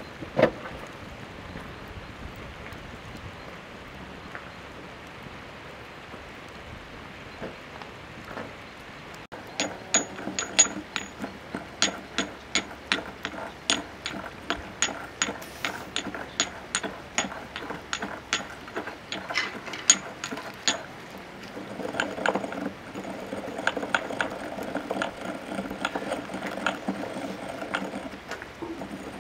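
Wood campfire under cooking pots: a steady hiss at first, then sharp crackles and pops from the burning logs, two or three a second, for about ten seconds, before settling into a denser steady crackle and hiss.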